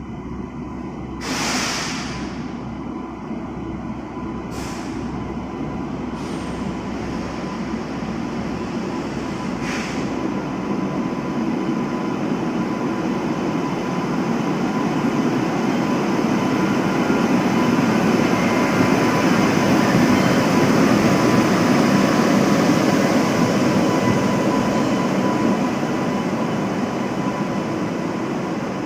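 Tejas Rajdhani Express train running, a steady rolling rumble that builds over about twenty seconds and then eases slightly. A few short sharp clicks come in the first ten seconds.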